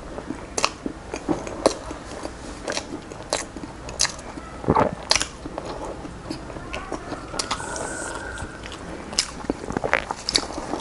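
Eating sounds of a man chewing a mouthful and licking his fingers, with irregular short clicks and smacks of mouth and lips.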